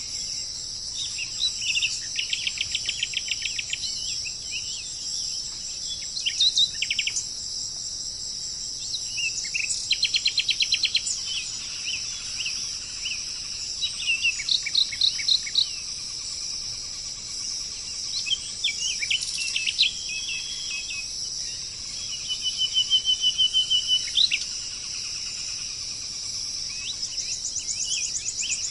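Birds singing in short phrases of rapid repeated notes and whistles every few seconds, over a steady high-pitched chorus of insects such as crickets.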